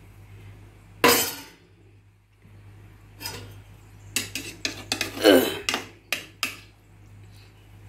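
Metal spoon stirring in a metal cooking pot of bitter gourd curry: a handful of separate clinks and scrapes against the pot, the loudest about five seconds in.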